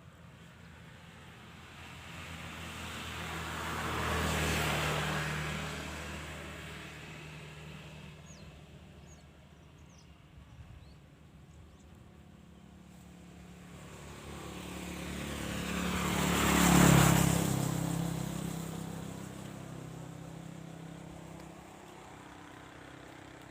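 Two motor vehicles driving past one after the other: engine sound swelling and fading about 4 seconds in, then a louder pass about 17 seconds in.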